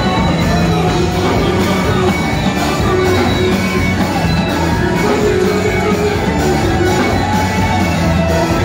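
Loud, steady amplified gospel music: a choir singing over a band with a heavy bass line, with shouts from a dancing crowd mixed in.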